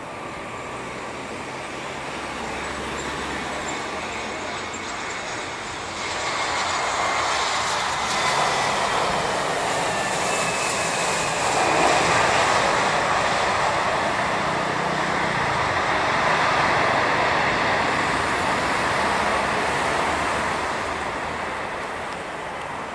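Super Air Jet Airbus A320-family airliner landing. Its jet engine noise swells, is loudest about twelve seconds in as the plane rolls past on the runway, and fades near the end as it rolls away. A faint high whine falls in pitch on the way in.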